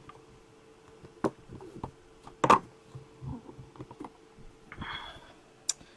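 Handling clicks and knocks as a card in a hard clear plastic holder is fished out of a hinged case box. There are a few separate sharp clicks, the loudest about two and a half seconds in, and a soft rustle near the end.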